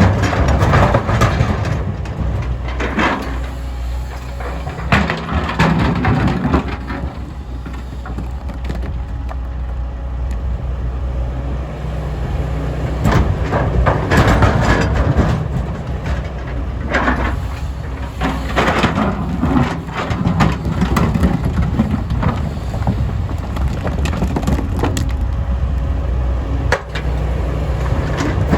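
MST M220LC excavator's diesel engine running steadily under load, with repeated bouts of rock crashing and scraping as the bucket digs into and dumps broken stone into a truck.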